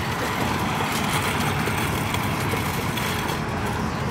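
Metal shopping cart rolling over asphalt, its wheels and wire basket rattling steadily.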